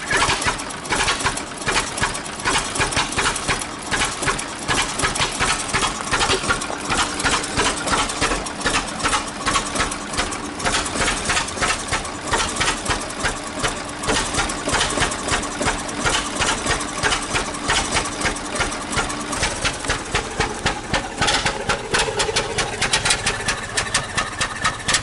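1926 Ford Model T's four-cylinder engine running unevenly in a rapid, irregular pulse, firing on only some of its cylinders: the front cylinder is thought not to be firing at all.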